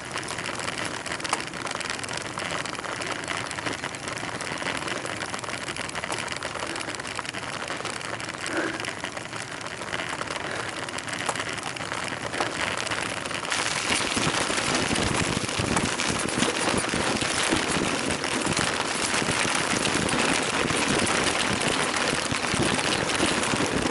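Bicycle riding on a dirt road: steady noise of tyres rolling over gravel, with wind on the microphone. Louder and rougher from about halfway, with uneven buffeting low down.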